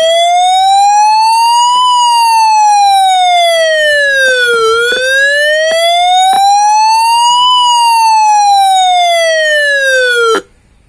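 A Halonix Shield fire alarm bulb's built-in speaker sounds its smoke alarm, set off by incense smoke reaching its sensor. It is a loud wailing siren tone that slowly rises and falls twice, then cuts off suddenly near the end.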